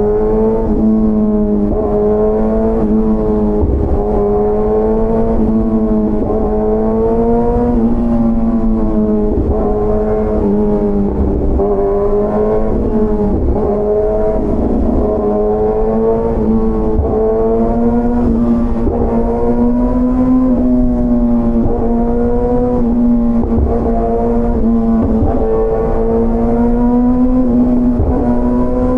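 Motorcycle engine and exhaust running at a steady cruise, the pitch holding nearly level and wavering slightly as the throttle shifts, over a low rush of wind and road noise.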